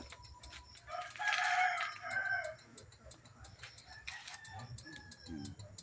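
A rooster crowing once, about a second in, the crow lasting about a second and a half.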